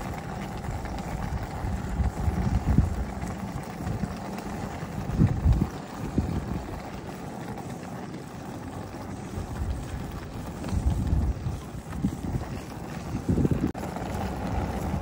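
Wind buffeting the microphone: irregular low gusts over a steady rumble, strongest about five, eleven and thirteen seconds in.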